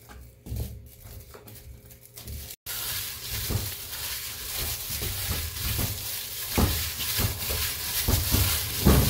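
A spoon stirring flour and water in a stainless steel bowl with faint scraping clicks. About two and a half seconds in, this changes to a plastic-gloved hand kneading dough in the bowl: continuous glove rustling with soft, irregular thumps of dough pressed against the steel.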